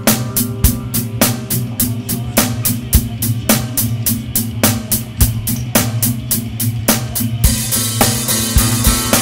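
Background music with a driving drum-kit beat, about two hits a second over a sustained bass line; the cymbals get louder and busier near the end.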